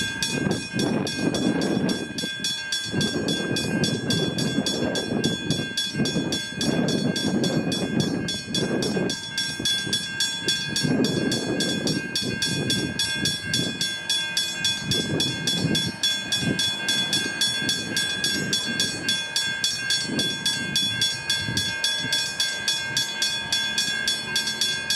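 Level crossing bell ringing continuously in evenly repeated strokes on one steady high pitch, over the low rumble of a train's engine running nearby.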